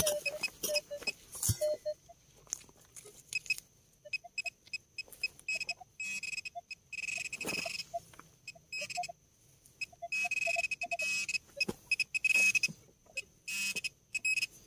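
Metal detector (Minelab Equinox 800) sounding short beeps in little runs over a buried target, with knocks and scrapes of digging in soil and higher whistling tones now and then.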